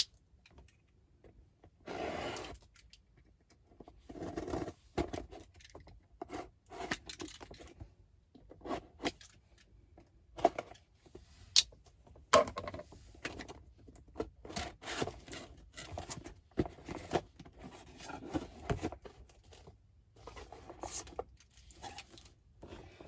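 A shipping box and its packaging being torn open and handled by hand: irregular tearing, scraping and crinkling with scattered sharp clicks and short pauses.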